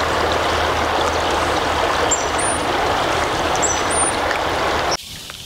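Creek water running over shallows, a steady rushing noise that stops abruptly near the end. Two short high chirps sound over it, about two and three and a half seconds in.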